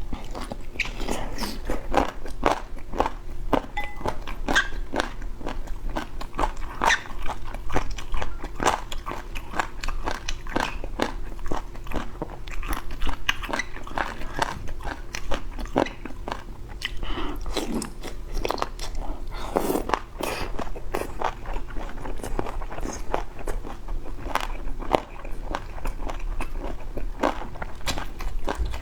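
Close-miked mouth sounds of a person eating boneless chicken feet: continual chewing and biting with frequent crisp crunches, several a second.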